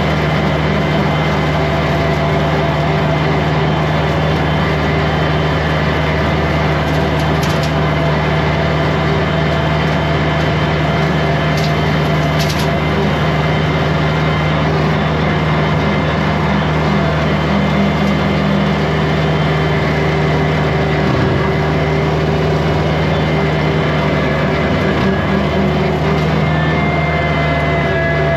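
Kubota compact tractor's diesel engine running steadily under load, with the PTO-driven rotary brush cutter spinning behind it.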